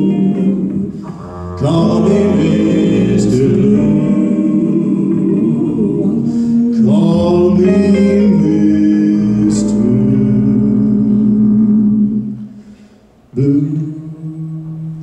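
Male vocal quartet singing held harmonies, accompanied by guitar and upright bass. The music drops away briefly near the end, then comes back more softly.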